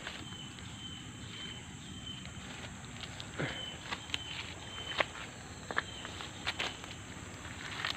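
Dry leaf litter and twigs crackling and snapping under footsteps and hands as fallen fruit is picked up off the forest floor, with a few sharper snaps in the second half. A steady high insect drone runs underneath, with short high chirps repeating.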